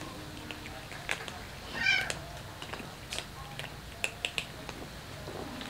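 A cat gives one short meow about two seconds in, over the scattered crunching of several cats chewing dry kibble.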